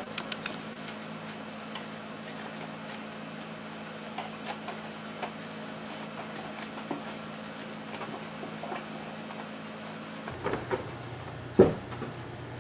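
Cotton fabric rustling and being handled as a sewn piece is pulled right side out. There are scattered soft taps, and a short thump near the end as it is laid down on the table, over a steady low room hum.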